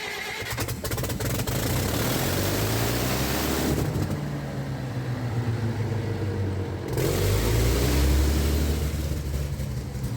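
Cummins diesel generator engine being started: a quick rattle of clicks about a second in, then the engine turns over and runs with a low, steady drone that gets louder about seven seconds in. The generator is one with a starting problem.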